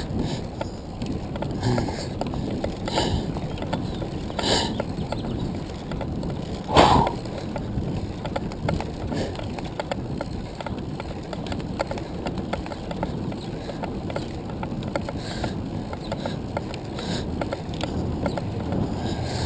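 Handcycle rolling along pavement: steady tyre and road noise with rattling from the chain and frame, broken by a series of sharp knocks a second or two apart, the loudest about seven seconds in.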